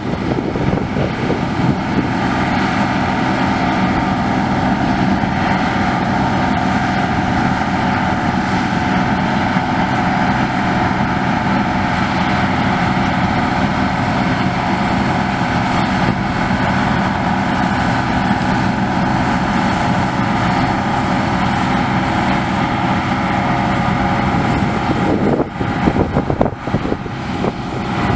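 Deutz-Fahr 4068 HTS combine harvester running steadily while combining winter barley: a loud, even drone with several steady tones. Near the end the sound briefly breaks up with a few dips, then settles again.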